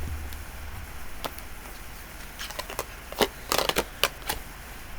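Tarot cards being handled and shuffled: a lone light click, then a quick run of soft card snaps and taps about halfway through.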